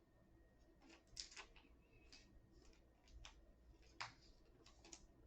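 Faint clicks and soft swishes of trading cards being handled and slid one over another, in short scattered strokes, the loudest a little after a second in and at about four seconds.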